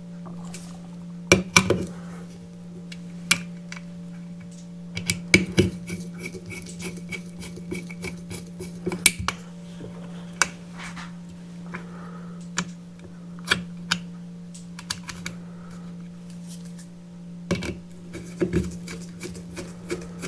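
Irregular metallic clicks and clinks of small screws, brackets and a screwdriver against a metal water jug as its handle brackets are screwed on, over a steady low hum.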